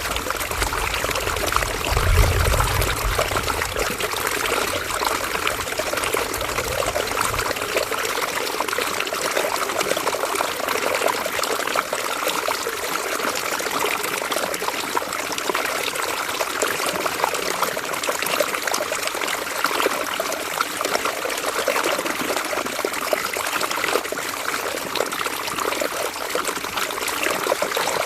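River water flowing steadily, a continuous trickling rush. A low rumble sits underneath for the first several seconds, strongest about two seconds in, then drops away about seven seconds in.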